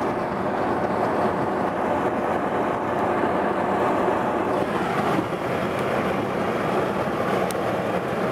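Steady road noise of a moving car, heard from inside the cabin: an even drone of tyres and engine.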